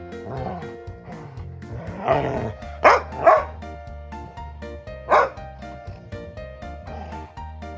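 Labrador retriever giving threat-display barks: a rougher lead-in about two seconds in, then two sharp barks in quick succession and a third about two seconds later, over background music.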